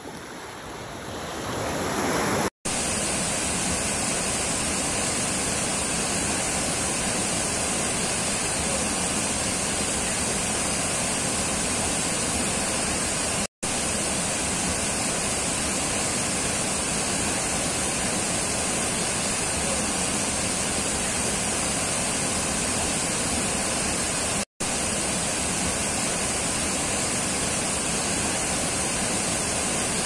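River rapids: white water rushing steadily over and around rocks, loud and even. It comes in suddenly about two and a half seconds in, after softer surf washing on a beach, and cuts out for an instant twice.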